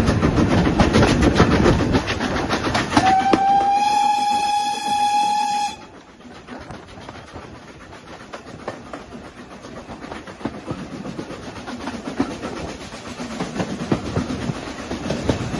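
Steam whistle of BR Standard Class 4MT 75069 sounding one long blast of about three seconds, heard from a carriage of the moving train. The whistle rises slightly in pitch as it opens and sounds over loud rhythmic running noise. As the whistle stops, the running noise drops sharply to a quieter rumble and rattle of the train, which builds again near the end.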